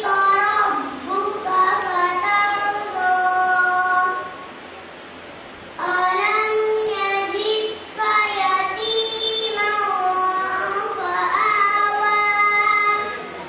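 A young girl's solo voice singing into a microphone: long melodic phrases that hold and slide in pitch. There is a pause of about a second and a half about four seconds in, and another near the end.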